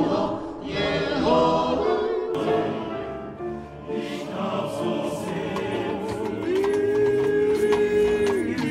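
Men's choir singing a folk song in several-part harmony, with one long held note near the end.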